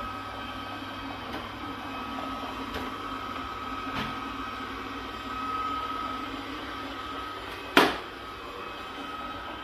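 Robot vacuum cleaner running across a tile floor: a steady motor hum with a thin whine over it. A single sharp knock comes near the end.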